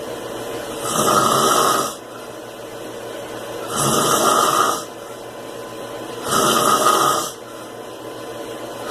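A heavyset man snoring: three loud snores, each about a second long and coming roughly every two and a half seconds, with quieter breathing between them.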